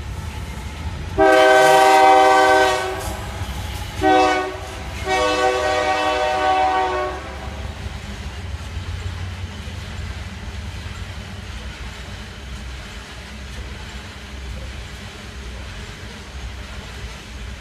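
Diesel locomotive air horn sounding three blasts, a long one, a short one, then another long one, over the steady low rumble of the passing train.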